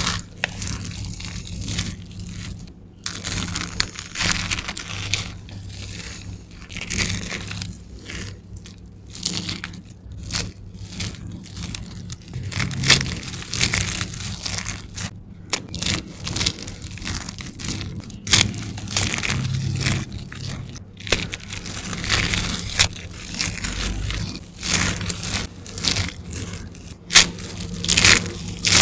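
Handfuls of dry carved soap shavings squeezed and crumbled between the hands: a continuous, irregular run of crisp crunches and crackles.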